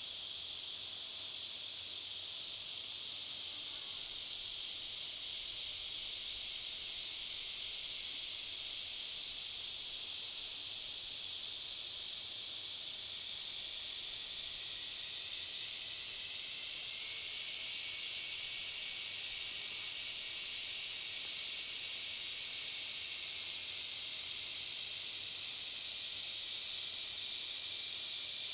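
Chorus of cicadas making a continuous high-pitched buzz. It eases slightly past the middle and swells again near the end.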